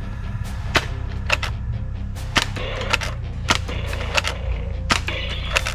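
Sharp plastic clicks and snaps from a Nerf foam-dart pistol being worked, about ten of them at uneven intervals, over a steady low background.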